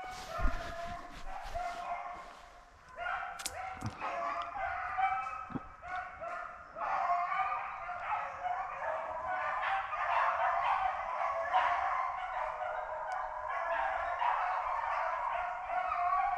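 Beagles baying as they run a rabbit's scent trail, their calls overlapping and growing fuller after a few seconds. A few short knocks come in the first seconds.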